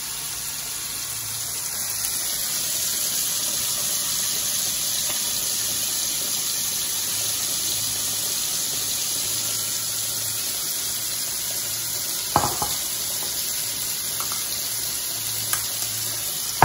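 Steady sizzle of meatballs frying in oil in a skillet, with one short knock about twelve seconds in.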